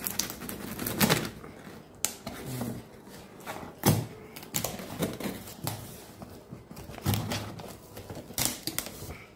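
A cardboard parcel being slit open with a snap-off box cutter: irregular sharp scrapes and rips as the blade cuts through packing tape and cardboard, and the flaps are pulled back.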